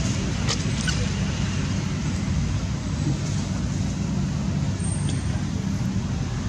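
Steady low rumble of a running motor vehicle engine, with a few faint sharp clicks about half a second and a second in.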